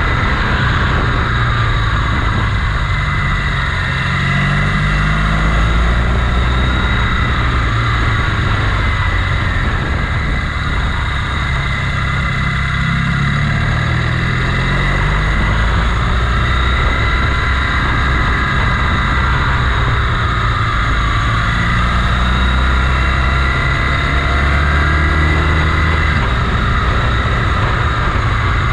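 Motorcycle engine running on the move, its pitch rising and falling as it speeds up and slows, over a steady rush of wind noise.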